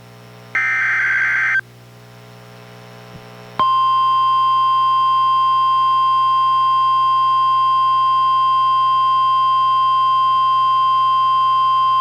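NOAA Weather Radio SAME digital header for a Special Marine Warning, played on a Reecom R-1630 weather radio: a burst of digital data lasting about a second. Then, a little over three seconds in, the steady 1050 Hz warning alarm tone starts and holds, the signal that a warning-level alert follows.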